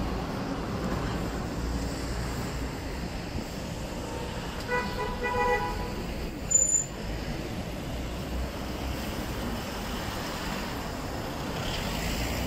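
Steady city street traffic noise. A vehicle horn beeps twice in quick succession about five seconds in, and a brief, sharp high-pitched sound follows a second later.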